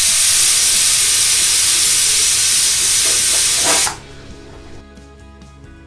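Aluminium pressure cooker's weighted valve releasing steam in a loud, steady hiss, the cooker's "whistle" that is counted to time the cooking. It cuts off suddenly about four seconds in.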